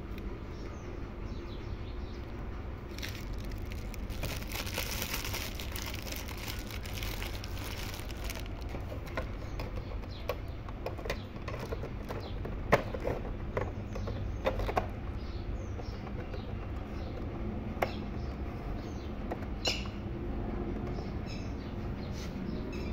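Birds chirping in short high calls over a steady low rumble, with a rustle for a few seconds and several sharp knocks and clicks as the plastic cabinet of a cassette tape recorder is handled.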